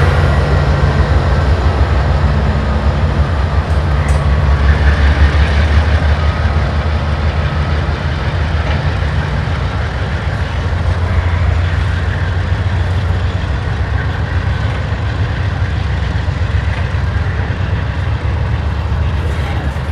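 Canadian Pacific GE AC4400CWM diesel locomotives, each with a 16-cylinder GE 7FDL engine, working as they pull a freight train away. Their deep engine drone fades after the first several seconds. Loaded freight cars rumble steadily past on the rails.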